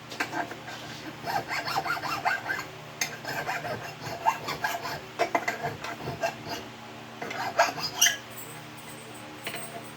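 Hand filing: runs of short, rasping scrape strokes at an irregular pace, with a couple of sharper clicks about three quarters of the way through and quieter strokes near the end.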